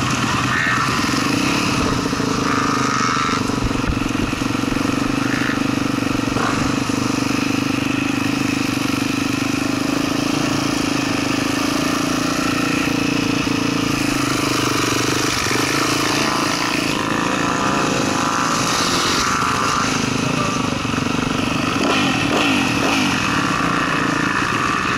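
Yamaha motocross bike's engine running steadily at low revs while ridden slowly.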